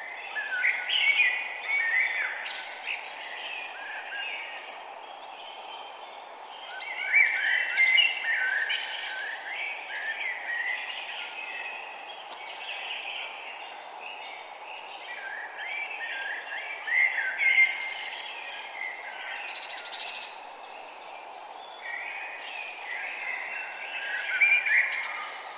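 Wild birds singing and chirping in quick bouts every few seconds, over a steady background hiss.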